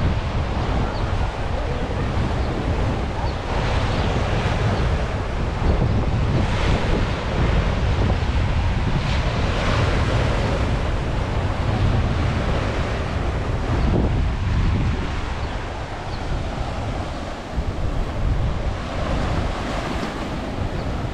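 Sea waves washing onto the shore in swells every few seconds, with wind buffeting the microphone.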